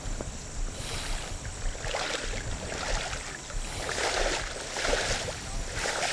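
Pond water sloshing and splashing as two people in waders drag a seine net through it toward the bank, in swishes about once a second, over a low wind rumble on the microphone.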